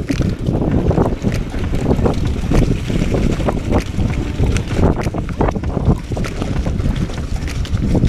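Wind buffeting the bike-mounted camera's microphone and mountain bike tyres rumbling over a rough dirt trail, with frequent knocks and rattles from the bike on the bumps.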